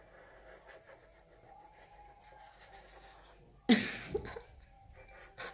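Felt-tip markers scratching faintly on paper as two people draw. A sudden much louder noise breaks in about two-thirds of the way through and dies away within half a second.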